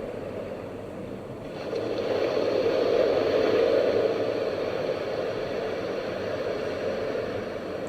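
InnoGear white-noise diffuser's built-in sound machine playing one of its nature tunes through its small speaker: a steady rushing noise that swells about two seconds in, then settles.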